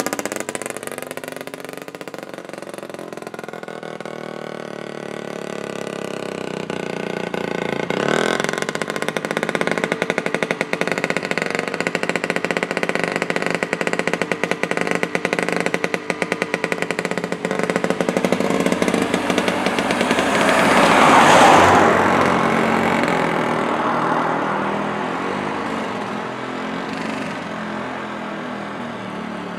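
Small 100 cc BMA clip-on two-stroke engine of a 1920s Terrot motorised tandem running under way. It is loud as it passes at the start and fades as it moves off. It builds up again to its loudest about two-thirds of the way through, with a rushing hiss, then dies down.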